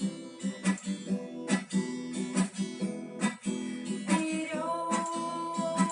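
Acoustic guitar strummed in a steady rhythm with no singing, an instrumental break between the song's lines.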